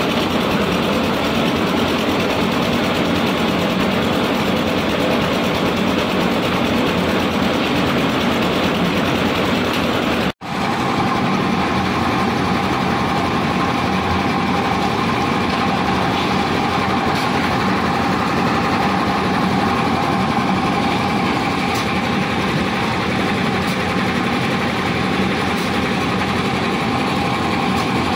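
Engine of a portable concrete mixer with a bucket lift, running steadily under load. It breaks off for an instant about ten seconds in, and after that a steady hum stands out in the engine noise.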